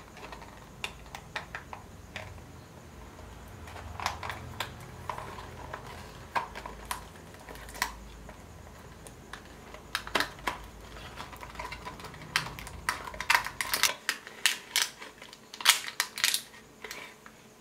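Small cardboard box being opened and a clear plastic case slid out of it: scattered clicks, taps and scrapes of card and plastic, busier near the end.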